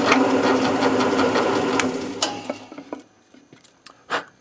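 Drill press running with a 1-inch Forstner bit boring through a PVC pipe fitting; the motor is switched off about two and a half seconds in and winds down. A single sharp knock near the end.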